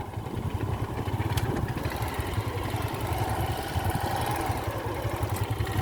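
A small vehicle engine, likely a motorcycle, running steadily with a low, rapidly pulsing hum.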